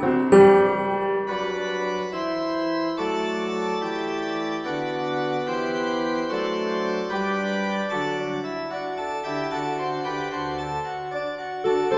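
Background music: sustained organ-like keyboard chords that change every second or two.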